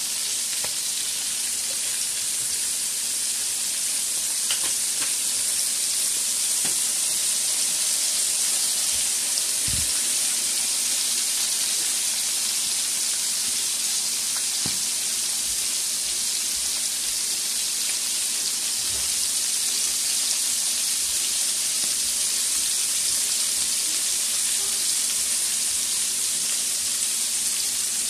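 Flour-dredged whole sardines deep-frying in hot oil in a wide metal pan: a steady high sizzle with a few faint pops scattered through it.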